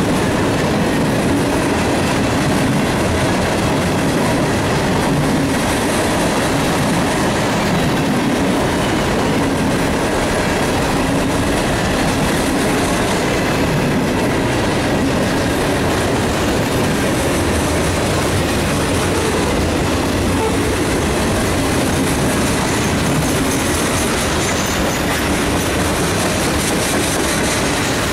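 Mixed freight train's cars rolling past at close range: a steady, loud rumble and clatter of steel wheels on the rails, with a faint thin squeal from the wheels.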